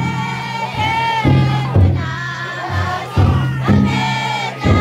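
Taiko drum inside a futon daiko festival float being struck in heavy, uneven beats while a crowd of carriers chant and sing together.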